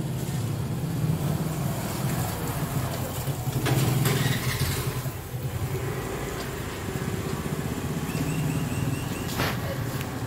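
Motor scooter engine running steadily, with a louder stretch about four seconds in.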